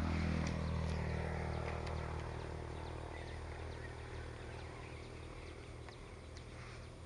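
Low engine hum, sliding slightly down in pitch and fading steadily, with faint short high chirps scattered through it.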